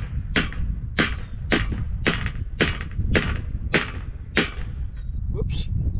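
Hammer blows on the end of a camper awning tube, a steady series of sharp strikes about two a second, working an end cap off. Wind rumbles on the microphone underneath.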